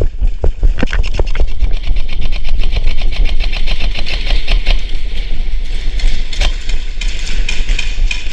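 Airsoft guns firing in fast strings: a rapid train of sharp pops, over a steady low rumble.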